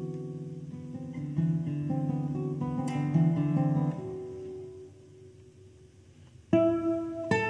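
Solo classical guitar, a 2017 Alkis Efthimiadis concert instrument, playing slow, sustained low notes. About four seconds in the notes die away into a brief, almost silent pause, and near the end a loud plucked chord and new notes come in.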